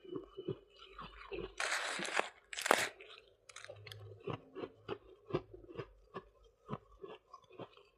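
Close-miked crunching of soft white freezer-frost ice being bitten and chewed: two long crisp crunches about two seconds in, then a run of short sharp crunches, about two a second, as it is chewed.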